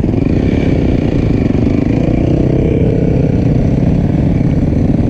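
Dirt bike engines running steadily at close range, loud, with slight rises and falls in engine speed.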